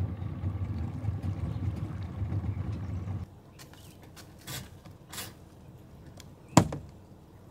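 A low, steady engine rumble from the idling boat, which stops about three seconds in. Then light clicks and knocks of gear being handled at a boat on its trailer, with one sharp, loud knock near the end.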